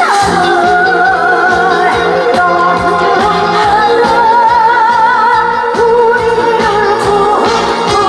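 A woman singing a Korean song live into a microphone, with strong vibrato on held notes, over an amplified band backing with a steady beat.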